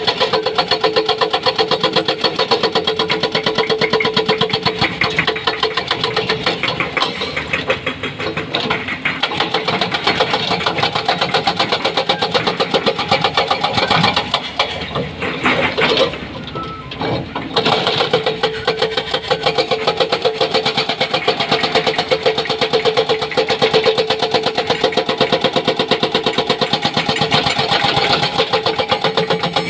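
Hydraulic rock breaker on a Doosan excavator hammering rock in a fast, steady run of blows over the running engine. The hammering pauses briefly about halfway through, then resumes.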